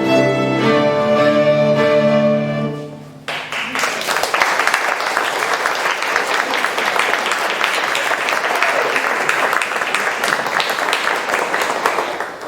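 A beginner group of violins and other bowed strings ends a piece on held final notes, then the audience applauds for about nine seconds.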